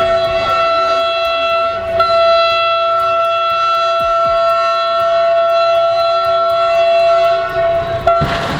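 Train air horn sounding one long, steady chord, with a brief break about two seconds in. It stops shortly before the end and gives way to a loud rushing noise.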